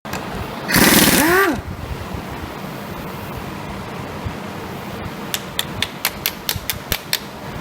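Workshop sounds during an engine teardown: a loud, brief noisy burst with a rising-and-falling squeal about a second in, then a run of about eight sharp clicks, roughly four a second, over a steady fan-like hum.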